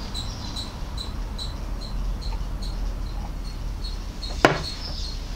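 A cricket chirping steadily, about three short high chirps a second, with a single sharp knock near the end.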